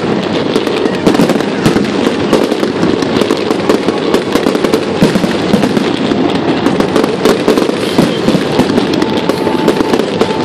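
Fireworks going off in a dense, unbroken stream of pops and crackles.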